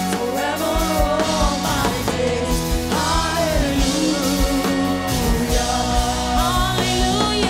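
Live gospel worship music: voices singing over sustained chords, with a drum beat thumping underneath.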